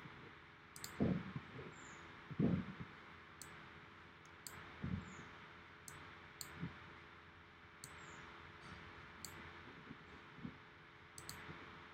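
Computer mouse clicking, about a dozen sharp clicks at irregular intervals, with a few soft low thumps in the first few seconds over a faint steady hiss.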